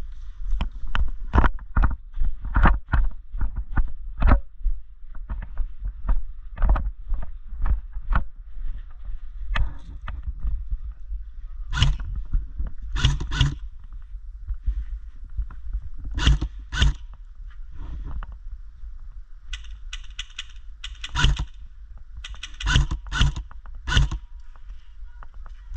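Footsteps with sharp knocks and scuffs, about two a second at first and then sparser and in pairs, over a steady low rumble of wind and handling noise on a body-worn camera's microphone.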